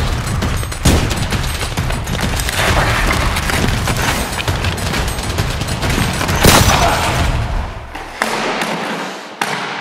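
Gunfight sound effects: rapid, dense automatic gunfire and shots with a few heavier bangs, thinning out near the end to a couple of single shots.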